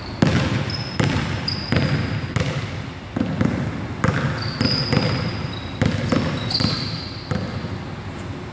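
Basketball dribbled on a hardwood gym floor, about two bounces a second, each bounce echoing in the big hall. Sneakers squeak briefly on the floor between bounces as the player changes direction.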